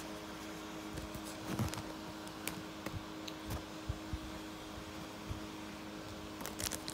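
A steady low hum in a small room, with a few faint soft clicks and rustles from trading cards being handled.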